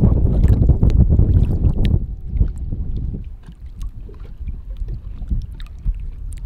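Water splashing and sloshing around a snook held by the lower jaw in the water during its release, with small drips and splashes. Wind buffets the microphone for the first two seconds, then drops away.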